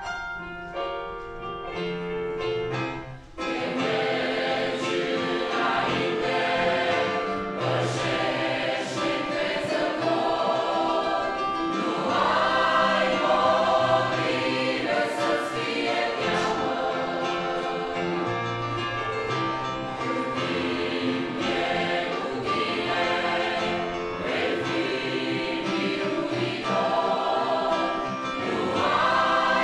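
A short instrumental introduction, then a large church choir comes in about three seconds in and sings a Romanian hymn in many voices.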